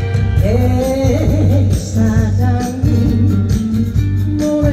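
A woman singing into a microphone over amplified accompaniment with a steady bass beat. Her voice comes in about half a second in, with gliding, ornamented notes.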